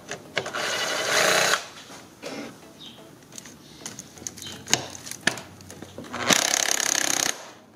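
Cordless Makita ratchet with an 8 mm socket spinning out airbox cover bolts, in two runs of about a second each, the first near the start and the second near the end. Light clicks and taps of the socket and tool between the runs.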